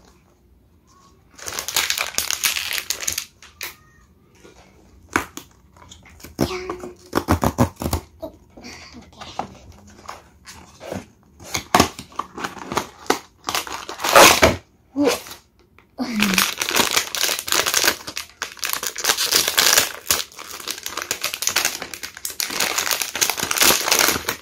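Blind-box packaging being opened: a cardboard box handled with scattered taps and scrapes, then a foil inner bag crinkling and rustling steadily for the last several seconds.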